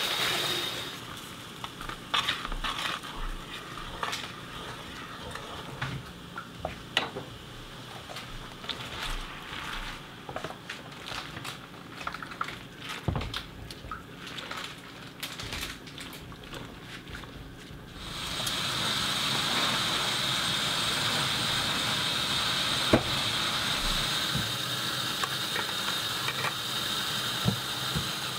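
Kitchen tap running onto spinach in the sink, cutting out after a second. Then a wooden spoon turns wet spinach in a pot on the stove, with scattered clicks and crackles. About two-thirds of the way through, the tap runs steadily again as spinach is rinsed in a metal colander.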